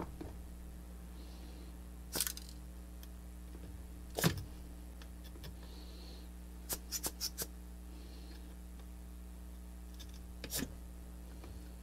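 Small sharp clicks and taps of hand tools and a soldering iron against a circuit board and plastic case while a fuse is being desoldered: scattered single clicks, the loudest a little past four seconds in, and a run of four quick ones around seven seconds in, over a steady low electrical hum.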